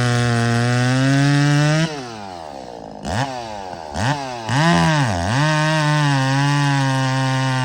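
Muffler-modified Echo 680 chainsaw running at full throttle in a cut. About two seconds in the throttle is let off and the engine drops toward idle. It is blipped up and down a few times, then revs back up and holds a steady full-throttle speed from about the middle on.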